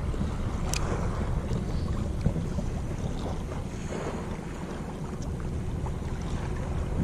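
Wind buffeting the microphone over choppy sea water lapping at the shore, a steady rumbling noise, with one sharp click under a second in.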